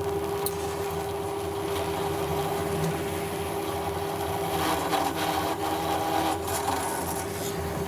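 A steady motor hum with a rasping, rubbing noise of steel being worked against an abrasive, louder from about four and a half seconds in for about two seconds.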